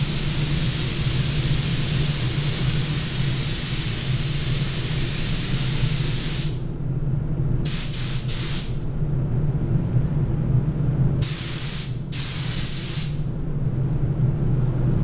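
Gravity-feed air spray gun hissing as paint is sprayed onto a car bonnet. One long pass of about six seconds cuts off sharply, followed by two short bursts and then a second pass of about two seconds with a brief break in it, each time the trigger is pulled. A steady low hum runs underneath.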